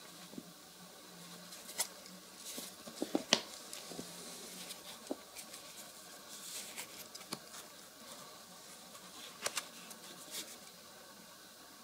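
Hands handling flat shoes on a wooden tabletop: soft scratchy rubbing of shoe material, with scattered light taps and clicks. The sharpest click comes about three seconds in, and two more come near the end.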